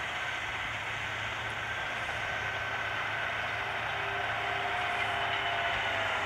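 Challenger MT775E rubber-tracked tractor working under load, pulling a disc harrow through the soil: steady diesel engine running with a few whining tones over it, growing slightly louder near the end.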